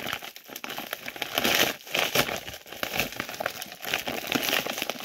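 Layers of tape-wrapped plastic packaging being pulled apart and crumpled by hand: a dense, irregular crinkling and crackling.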